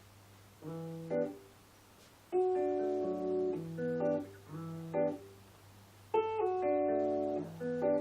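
Guitar strumming chords, struck roughly once a second and each left to ring, starting a little way in. A steady low hum runs underneath.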